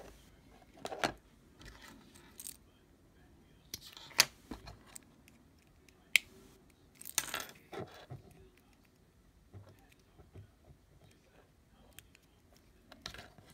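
Small plastic connectors and wire leads of a model-aircraft receiver and satellite receiver being handled and plugged together close to the microphone: scattered sharp clicks and short rustles with quiet gaps between.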